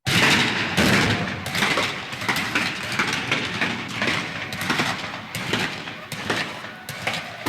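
Nineteenth-century battle ambience: many scattered gunshots over a continuous din. It starts loud at once and eases slightly towards the end.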